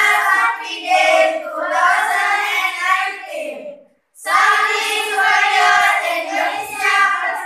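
A group of young voices, mostly girls, singing in unison: two long phrases with a brief break about four seconds in.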